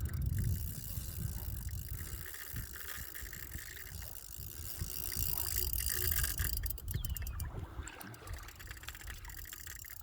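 Wind buffeting the microphone over the hiss of surf, with a fishing reel clicking as a hooked shark pulls on the line; a run of sharp clicks comes about six and a half seconds in.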